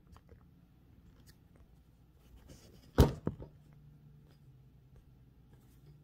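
The ink-roller armature of a 1914 Blickensderfer typewriter being lifted and handled: one sharp metal click about halfway through, then two lighter clicks just after.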